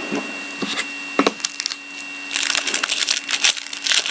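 A foil trading-card pack being torn open and crinkled in the hands: a few light handling clicks, then about two seconds of dense crackling of the wrapper from about two seconds in. A faint steady whine sits underneath.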